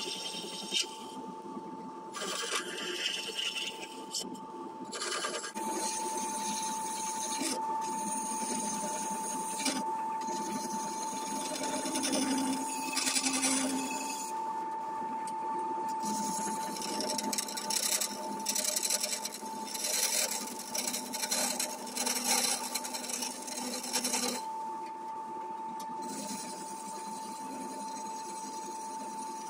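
Wood lathe running with a steady whine while a turning tool cuts a spinning poplar blank. The tool makes a rough scraping noise that comes and goes in stretches of a few seconds.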